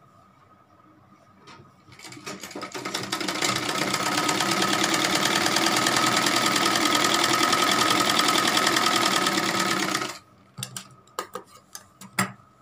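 Domestic sewing machine stitching a fabric waistband: it starts about two seconds in, picks up speed to a fast, steady run, and stops suddenly about ten seconds in. A few sharp clicks and snips of scissors follow near the end.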